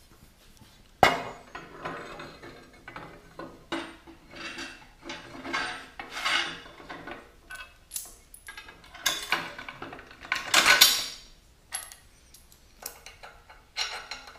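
Steel parts clanking and clinking as a heavy steel channel bracket is set into a bolted steel frame and its bolts, washers and wedges are fitted by hand. A sharp clank about a second in, then scattered clinks and scrapes, with a longer, louder metallic rattle about two-thirds of the way through.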